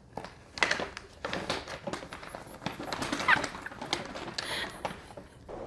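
Brown paper bag crinkling and rustling in many quick crackles as two cats scuffle on it, with a brief wavering cry about three seconds in.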